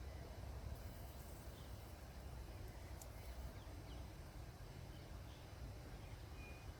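Faint outdoor ambience: a steady low rumble with a few brief, faint bird chirps.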